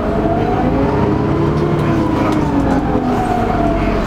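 Dennis Trident double-decker bus running under way, heard from inside the lower saloon: a steady engine rumble with a pitched note that rises and then falls away around the middle.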